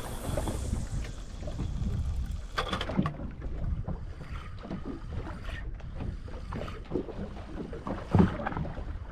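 Sounds aboard a small fishing boat on open sea: water against the hull and wind buffeting the microphone, with scattered knocks and one louder thump about eight seconds in.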